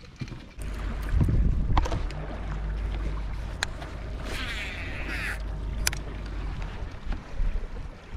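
Bass boat sitting on open lake water: a low, steady rumble with a few sharp clicks and a short hiss about four and a half seconds in.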